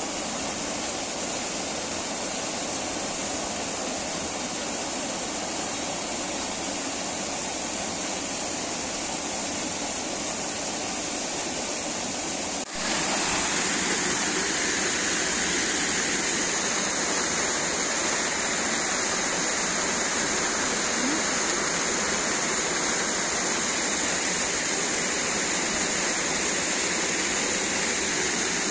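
Steady rushing of water falling over a small waterfall. A little before the middle it jumps abruptly louder and brighter, then holds steady again.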